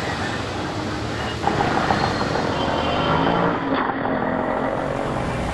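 Road traffic on a city street: vehicle engines running with a steady hum of traffic, and one vehicle getting louder about a second and a half in.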